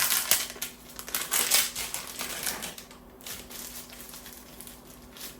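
Crinkling of blind-box packaging being handled, with many small sharp clicks. It is busiest in the first two to three seconds, then goes on fainter.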